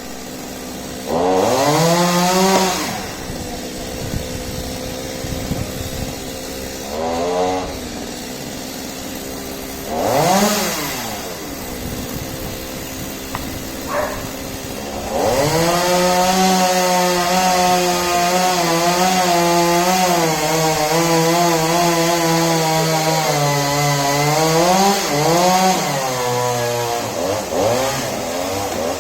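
Chainsaw idling between short blips of the throttle, then held at high speed for about ten seconds from around the middle, its pitch wavering and dipping as it is worked, typical of cutting through a tree.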